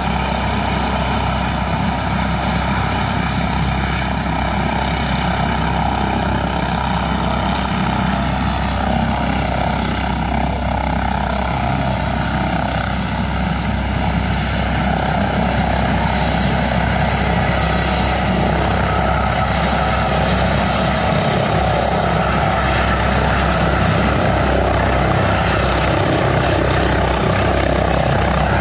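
Airbus H145 helicopter's twin turbines and main rotor running on the ground, a steady high turbine whine over the rotor noise. It grows a little louder through the second half as the helicopter powers up and lifts off near the end.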